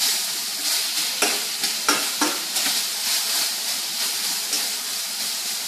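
Green beans sizzling in hot olive oil in a stainless steel skillet while being stirred with a spatula, which clicks and scrapes against the pan a few times in the first couple of seconds.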